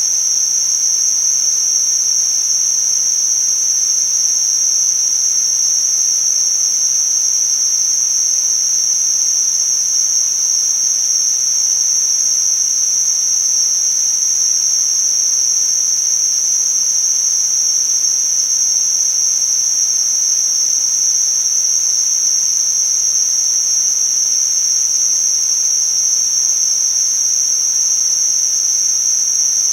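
Tinnitus-masking noise: a steady, unbroken high-pitched hiss held in one narrow pitch band, over a fainter even hiss.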